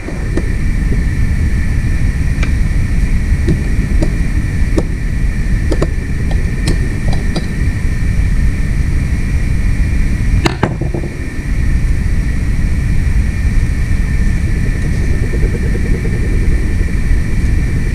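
A steady low mechanical rumble with a constant high whine over it, broken by scattered light clicks and a sharper click about halfway through.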